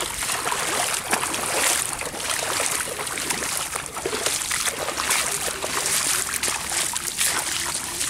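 Feet wading through shallow water, splashing irregularly.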